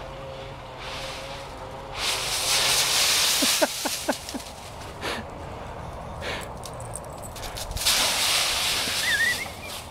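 Dry autumn leaves rustling and crunching as a Siberian husky burrows and plunges through a deep leaf pile, loudest in two stretches: about two seconds in and again about eight seconds in. A few brief squeaks come through in the middle.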